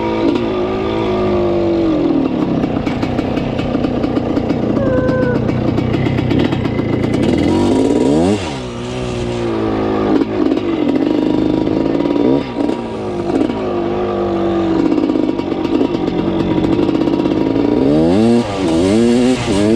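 1979 Yamaha IT 250's two-stroke single-cylinder engine running under way, its revs rising and falling with the throttle and gear changes. The revs drop sharply about eight and twelve seconds in, with several quick rev swings near the end.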